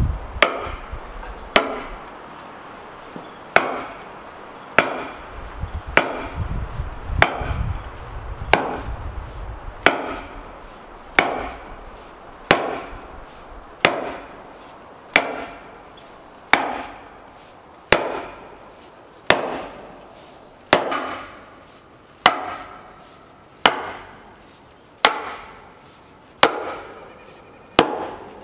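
Sledgehammer blows on the end of a wooden sawhorse leg, driving it into its hole in a log beam. The blows are steady, about one every 1.3 seconds, and each is a sharp knock with a short ringing tail.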